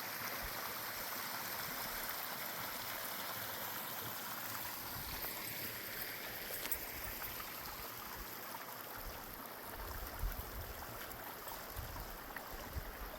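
A small mountain stream running and trickling steadily over rocks. A few soft low bumps come in the last few seconds.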